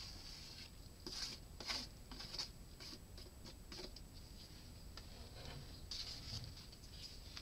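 A wooden stick stirring hot water and deer hair in a glass measuring cup, with faint clinks and scrapes of the stick against the glass, coming thickest between about one and four seconds in.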